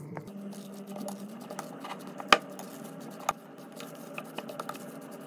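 A spatula working a thick salt cod mixture in a glass bowl: soft scraping with scattered light taps against the glass, and a sharp knock a little over two seconds in.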